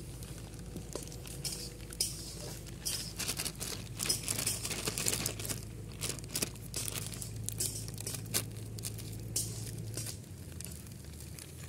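Thin plastic bag crinkling as soft ginger-garlic paste is squeezed out of it onto a steel plate, with irregular crackles throughout.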